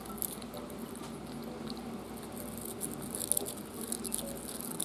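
Frenchton puppy chewing and gnawing on a plastic-bristled brush: a run of small, irregular clicks and scratches from its teeth on the bristles, busiest about three seconds in.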